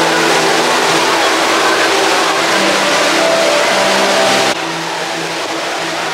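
Steady street traffic noise that drops suddenly in level about four and a half seconds in.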